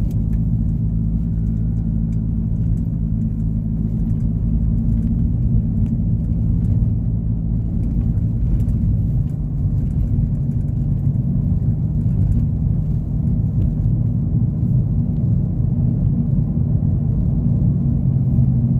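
Steady low drone of a car on the move, engine hum and tyre noise heard from inside the cabin.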